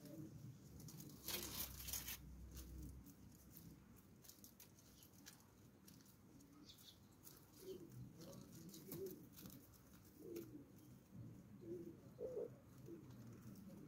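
Faint, short, low coos from caged ringneck (Barbary) doves, coming one after another in the second half, over light clicks and rustles of the birds pecking in straw; a brief rustle about a second and a half in.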